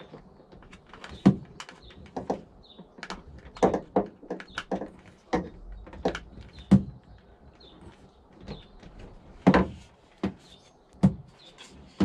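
Irregular knocks and clicks of hard plastic parts being handled: the flush pump cap and its wiring worked by hand inside a Thetford C402 cassette toilet.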